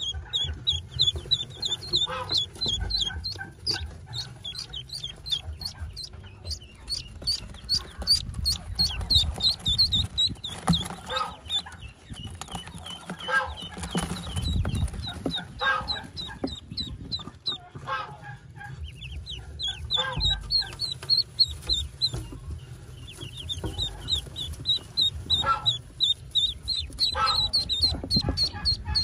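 Newly hatched Pekin ducklings peeping in rapid runs of short high chirps, several a second, with a few brief lulls. Low bumps of the birds being handled sit underneath.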